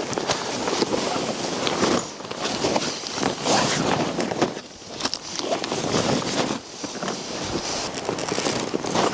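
Strong wind gusting against the microphone, swelling and dropping every second or two, with scattered clicks and rustles.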